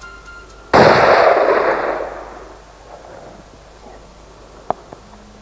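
A single rifle shot about a second in, its report dying away over a second or so, followed by a short sharp click near the end.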